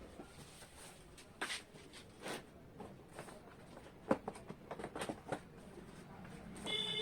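Cardboard packaging being handled and opened: scattered rustles and light knocks from the box flaps and inner packing, with a cluster of sharper knocks about four to five seconds in.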